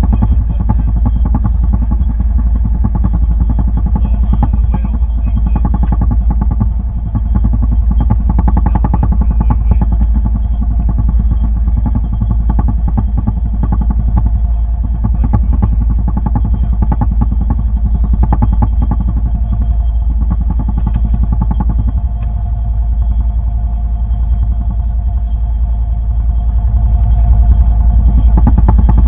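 A boat's engine running steadily at constant speed, a loud low drone with a steady hum; it swells slightly near the end.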